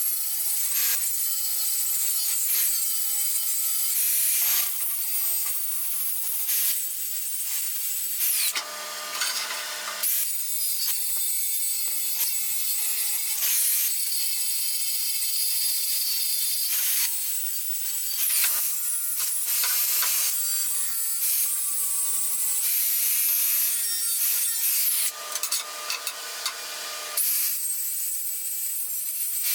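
Steel being ground with an abrasive power grinder in long, steady passes while the grates' cut sides are prepped for welding. The grinding eases off briefly about 9 seconds in and again about 25 seconds in.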